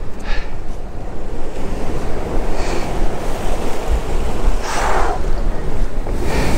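Ocean surf washing among shoreline boulders, with wind rumbling on the microphone. A few brief rushes of hiss rise above it, the loudest about five seconds in.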